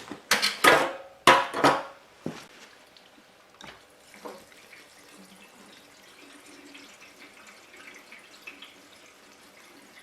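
Fresh gasoline being poured into a generator's fuel tank, a faint steady trickle. A few sharp clatters come in the first two seconds.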